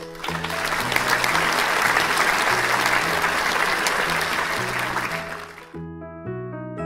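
Recorded applause, many hands clapping, laid over light background music. The clapping swells during the first second, thins out after about five seconds and stops near the end, leaving the music on its own.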